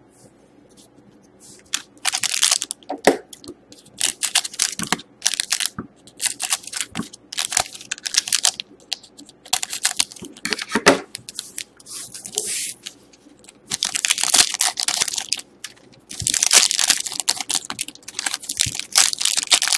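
Foil hockey card pack wrappers being snipped with scissors and pulled open, crinkling and tearing in repeated bursts that start about two seconds in.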